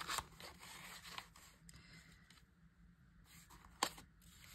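Paper tags being slid into a paper pocket of a junk journal: faint rustling and scraping of paper, with a sharp tick near the end.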